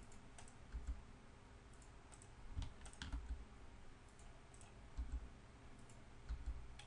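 Faint, scattered computer mouse and keyboard clicks, one every second or so, some with a soft low thump, over a low steady hum.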